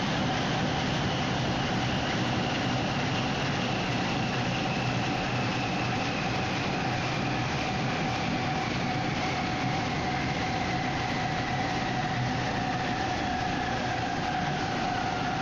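Large medium-voltage three-phase industrial electric motor running with a steady rumble, its whine slowly falling in pitch.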